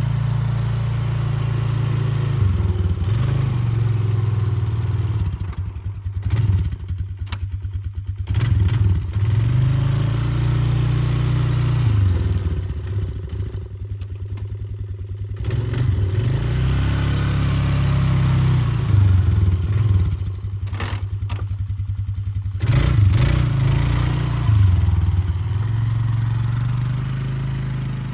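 Polaris Magnum 500 ATV's single-cylinder four-stroke engine running, its pitch rising and falling again and again as it is throttled up and eased off.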